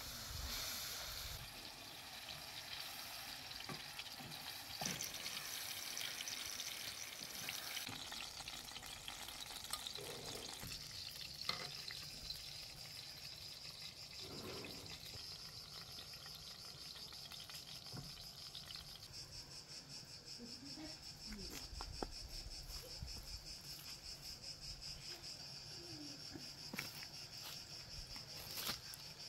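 Minced meat sizzling as it fries in a cast-iron pan over a wood fire, stirred with a wooden spoon. After about ten seconds a steady, high insect chirring takes over, growing stronger in the second half.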